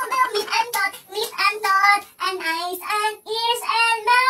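A high, childlike voice singing a quick tune in short phrases, with a few held notes.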